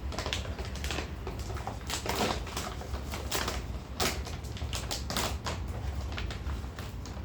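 Plastic snack packets being torn open and handled, crinkling in a dense, irregular run of sharp crackles.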